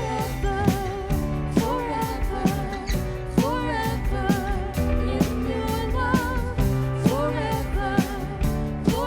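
Worship song with a singer holding wavering notes over a band, drum kit keeping a steady beat under a bass line.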